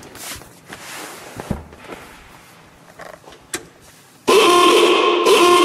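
The 1919 Pierce-Arrow Model 51's electric ahooga horn sounding once, loud, starting suddenly about four seconds in and holding a steady tone. Before it, a few light knocks.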